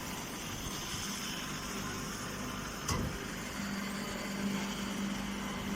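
Straw baler machinery running steadily, with a single knock about three seconds in and a low hum that strengthens soon after.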